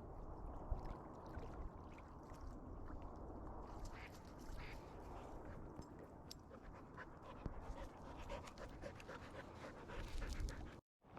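Faint dog sounds over a steady low rumble, with scattered small clicks.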